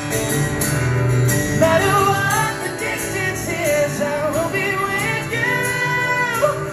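Live solo acoustic performance: an acoustic guitar strummed, with a voice singing a melody over it from about a second and a half in.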